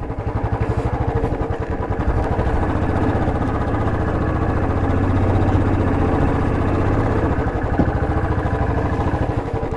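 Motorcycle engine running at low road speed, a steady chug of firing pulses that grows a little louder through the middle and eases off in the last few seconds as the bike slows.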